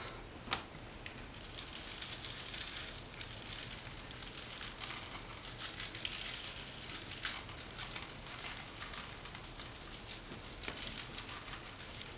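Dry BBQ rub shaken from a plastic shaker bottle onto raw turkey wings on a plastic tray, making a faint, continuous patter of falling granules. A single click comes about half a second in.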